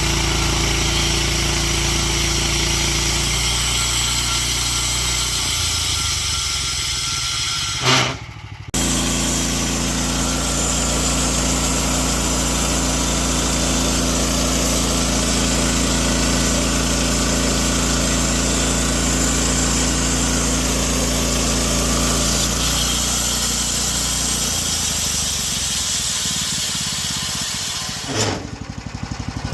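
Engine of a portable sawmill running steadily, its speed stepping down and back up a few times. It breaks off sharply for under a second about eight seconds in.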